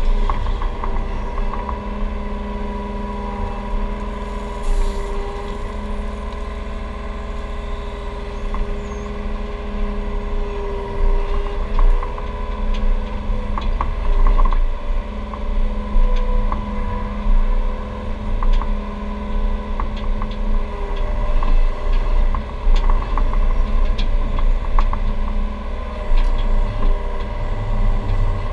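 Takeuchi TB235 mini excavator's engine and hydraulics heard from inside the cab, running steadily while the arm and bucket are worked, with a hum of several steady tones that drop in and out as the load changes. Scattered short clicks and knocks sound over it.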